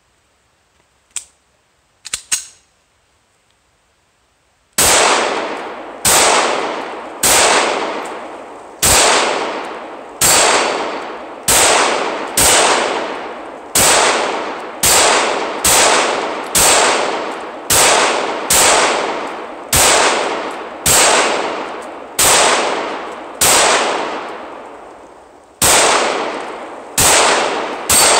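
Glock 17 9mm pistol firing from a 33-round magazine: a few light clicks, then, about five seconds in, a string of about twenty single shots at a steady pace, roughly one a second. Each shot trails off in a long echo.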